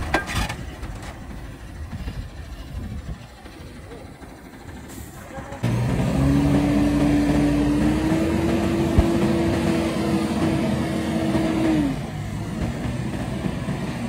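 A heavy vehicle's engine running. A quieter rumble gives way about halfway through to a louder, steady engine note that rises a little in pitch, holds, and drops back about two seconds before the end.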